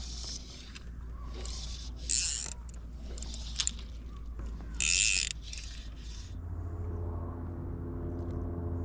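Electric trolling motor humming steadily, its pitch stepping up to a higher, more tonal hum about six seconds in, as if the speed setting changed. A few short hissing bursts sound over it.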